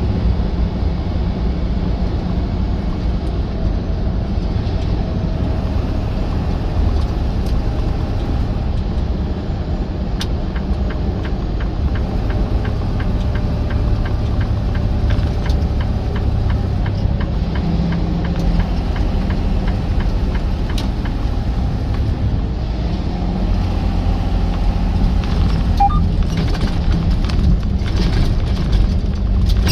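Semi truck running with a steady low rumble. A run of faint, evenly spaced ticks sits in the middle.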